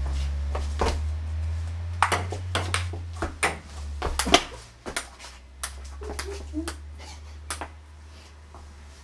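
Table tennis ball being hit back and forth, a series of sharp, irregular clicks off paddles and table, over a steady low hum that fades about halfway through.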